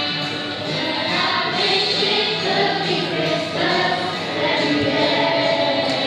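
Choir singing a Christmas song, the adult singers joined by a group of scouts.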